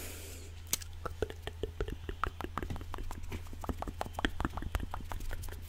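A quick, irregular run of soft close-up clicks, several a second, made right at a sensitive microphone as an ASMR trigger, over a steady low electrical hum.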